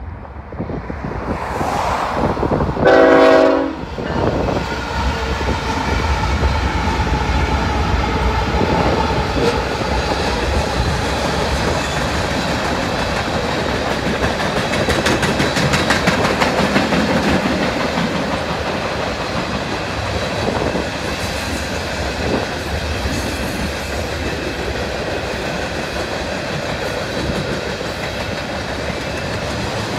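Union Pacific freight train passing with GE diesel locomotives in the lead: one short horn blast about three seconds in, then the steady rumble and clickety-clack of freight cars rolling by.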